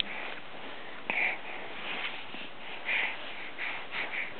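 A six-month-old baby's short, breathy sniffs and soft mouth sounds, coming irregularly about every half second over a low hiss.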